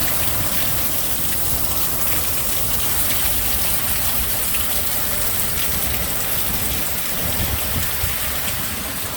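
Strong storm wind blowing hard and steadily, with a low rumble of gusts hitting the microphone.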